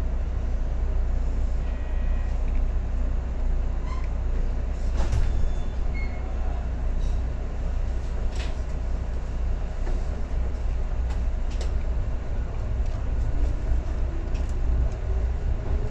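Interior running sound of a JR 115 series electric train: a steady low rumble from the carriage with scattered clicks and knocks. About thirteen seconds in, a single tone starts rising slowly, the whine of the DC traction motors as the train picks up speed.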